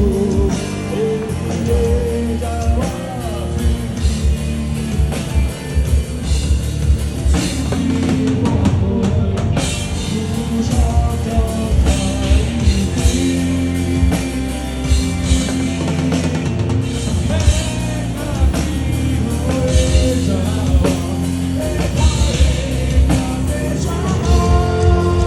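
Live rock band playing a full-band passage: drum kit, electric guitars and bass, with some singing.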